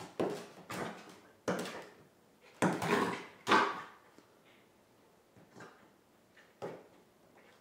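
Rough play between a corgi puppy and a person on a hardwood floor: a run of loud thumps and scuffles, about five in the first four seconds, then only a few faint knocks.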